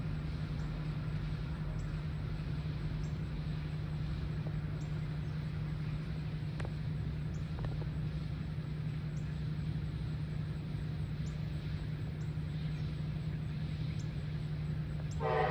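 Steady low hum with faint high ticks about once a second as the locomotives approach. Right at the very end, the lead Norfolk Southern SD60E's Nathan K5LA five-chime horn starts to blow its chord.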